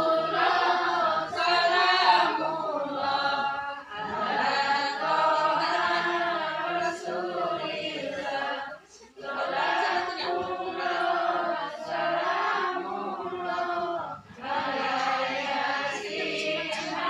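A group of women singing together in unison, without instruments, in long phrases with short pauses between them.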